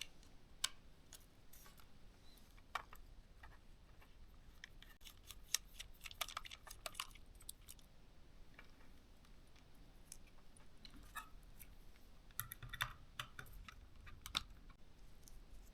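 Faint, scattered clicks and taps from a precision Torx T5 screwdriver and the drone's small plastic parts being handled during disassembly. The clicks bunch together about five to seven seconds in and again near the end.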